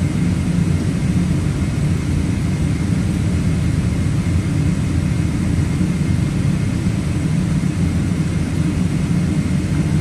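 Cabin noise of a Boeing 777-300ER taxiing: a steady low rumble with its GE90-115B engines at taxi idle, and a faint steady high whine.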